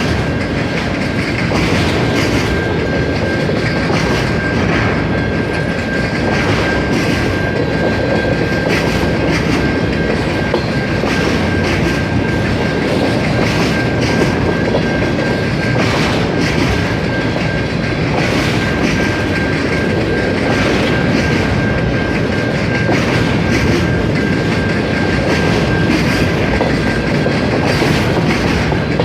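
CN freight train cars rolling past, wheels clacking over rail joints again and again over a steady rumble. A thin high whine runs under it and stops near the end.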